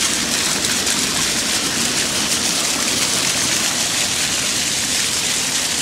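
Steady, loud rushing hiss of water pouring and splashing onto pavement, the walkways being washed down.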